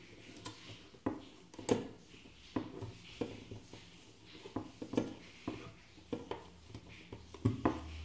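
Light irregular clicks and taps of a plastic graphics-card fan shroud and its cable being handled and fitted against the card's finned metal heatsink, about one or two a second, the loudest about two seconds in.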